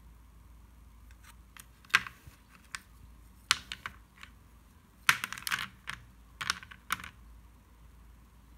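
Thin slate pencils clicking and clacking against one another as a handful is shuffled in the fingers: scattered sharp light clicks, busiest from about five to seven seconds in.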